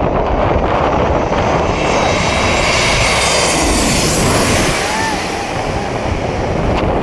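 Airliner passing low overhead on its landing approach: the engine noise swells to a peak about four seconds in, its pitch falling as it goes over, then eases off. Wind buffets the microphone throughout.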